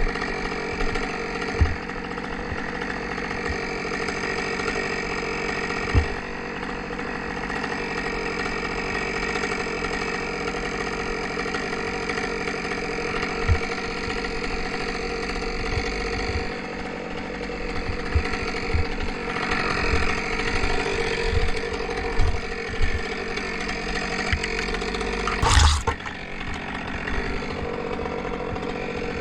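An engine idling steadily, with scattered low thumps and one brief louder knock near the end.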